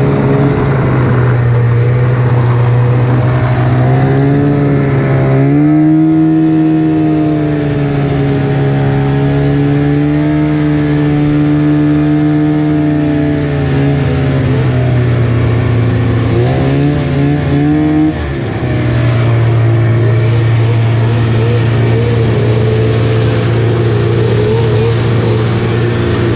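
Polaris two-stroke snowmobile engine running steadily. Its pitch rises about a fifth of the way in and comes back down around the middle. It wavers and dips briefly about two-thirds through, then settles into a steady run.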